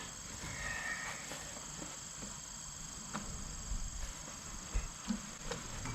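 Steady high-pitched insect chirring with a few faint clicks and knocks.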